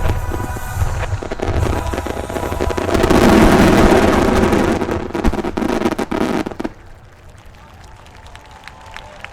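Fireworks finale barrage: a dense, rapid run of bangs and crackling that grows loudest about three seconds in, then stops suddenly about two-thirds of the way through, leaving a quiet background.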